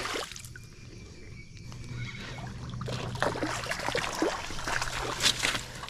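Hooked mangrove red snapper thrashing and splashing at the surface in shallow water as it is reeled in to the bank. The splashes start about halfway through and grow louder toward the end.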